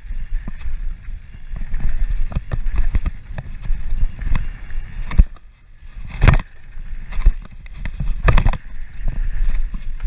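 Mountain bike ridden fast on a dirt trail: wind rushing over the camera microphone and the tyres rolling, with the bike clattering over bumps and two heavy thumps about six and eight seconds in.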